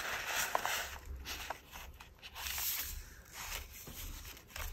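Paper pages of a handmade journal rustling and sliding as they are handled and turned, with a few light taps.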